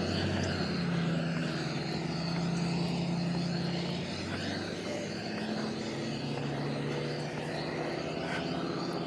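An engine droning steadily with a low hum whose pitch shifts a few times.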